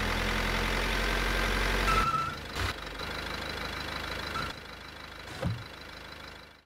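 A van's engine idling steadily, dropping in level about two seconds in and again later, with a short click and a later knock before it cuts off.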